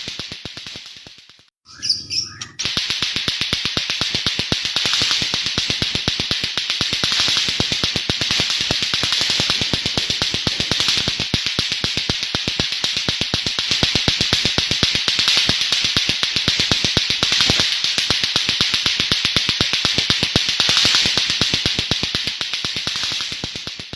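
White-rumped shama (murai batu) singing a harsh, rapid-fire 'nembak' song of very fast clicking notes, like lato-lato clackers. The song runs nonstop after a brief break a couple of seconds in.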